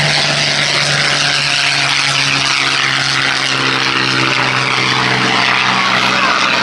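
Supermarine Seafire's V12 piston engine at full power on its take-off run and climb-out: a loud, steady propeller-aircraft drone with a strong hiss of propeller and exhaust noise.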